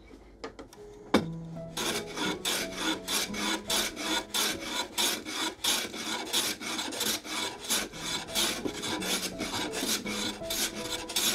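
Hand plane taking rapid, short strokes along the edge of a plywood panel to square it, about three strokes a second, each a quick scraping swish, after a single knock about a second in.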